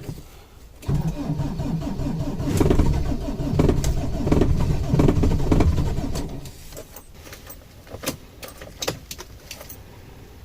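Car engine cranking on its starter motor for about five seconds, pulsing as it turns over, then stopping: a cold start in sub-zero weather.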